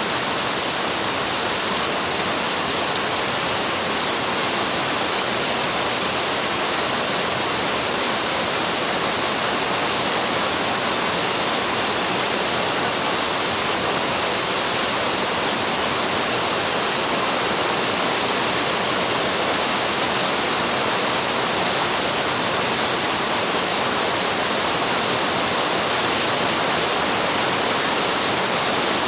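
Steady heavy rain: an even, unbroken hiss with no separate drops standing out.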